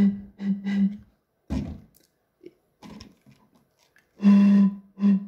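Breath blown across the mouth of plastic drink bottles, sounding a low, hollow hooting note. It comes as one long toot and two short ones, then again with the same pattern near the end on a small bottle.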